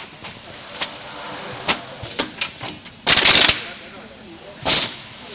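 Automatic canvas stretching machine at work: a run of sharp mechanical clicks and clacks, then two loud hisses of pneumatic air being released, the first about half a second long, the second shorter, roughly a second and a half apart.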